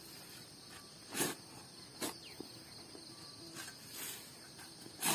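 Long-handled shovel digging into red clay soil, several scraping strokes about a second apart, the loudest near the start and near the end. A steady high chirring of insects runs underneath.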